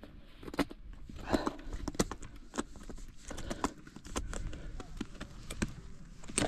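Irregular sharp clicks and knocks, about one or two a second, of climbers' boots and metal climbing gear striking rock and ice on the ascent.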